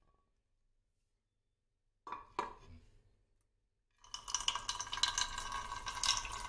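A metal pan clinks and knocks briefly about two seconds in. From about four seconds, a thin stream of water runs from the tap of a clay water pot into a non-stick pan, filling it.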